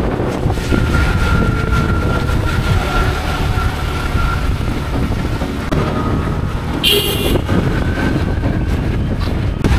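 Steady rush of wind, engine and tyre noise from riding pillion on a motorbike taxi through traffic on a rain-wet road. A short, high-pitched horn toot sounds about seven seconds in.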